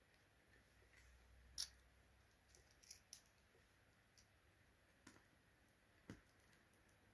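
Quiet, scattered clicks and light taps of small screws and cooler fan parts being handled and hand-tightened: a sharp click about a second and a half in, two close clicks around three seconds, and a duller knock near the end.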